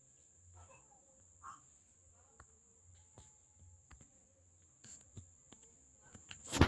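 Quiet background with a steady high-pitched whine, like an insect's, and a few faint ticks, broken by one short loud noise near the end.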